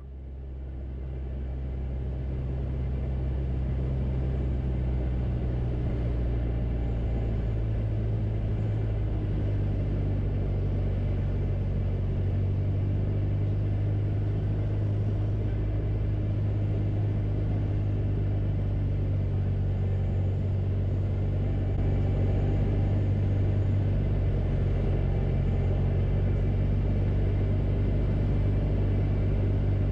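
Steady low drone of a small piston airplane's engine and propeller heard inside the cockpit during a descending approach. It fades in over the first couple of seconds and grows slightly louder about two-thirds of the way through.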